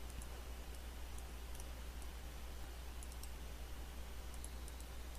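Faint computer mouse clicks, a handful of single clicks and quick pairs, over a steady low electrical hum and hiss.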